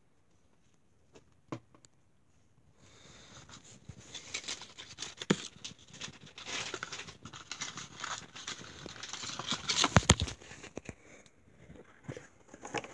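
Crinkly green packaging wrap handled and crumpled by hand. After a near-silent start with two faint taps, rustling and crinkling begin about three seconds in, grow loudest about ten seconds in, then taper off.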